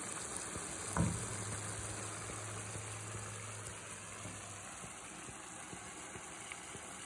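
Rice and wine simmering quietly in a pan, a steady soft bubbling. About a second in, a sharp knock as a wooden spoon is set down on a wooden cutting board, and a low steady hum runs on for a few seconds after it.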